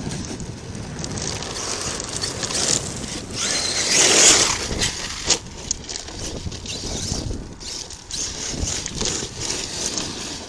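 Arrma Kraton 8S electric RC monster truck driving over dirt and rocks: tyre and gravel noise with a brief high motor whine, loudest about four seconds in, with wind on the microphone.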